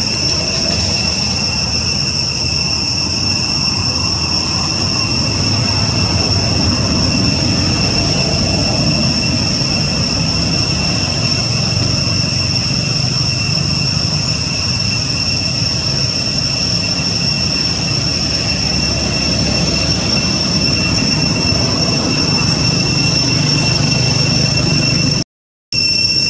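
Steady high-pitched drone of cicadas in the trees over a low, noisy rumble, dropping out for a moment near the end.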